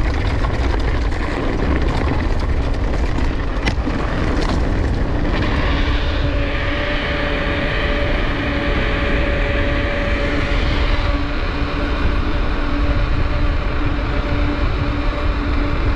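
Steady rushing and rumbling of a downhill mountain bike being ridden: wind buffeting the action camera's microphone and tyres rolling on the trail. A single sharp click comes a little under four seconds in, and a steady hum joins from about five seconds in.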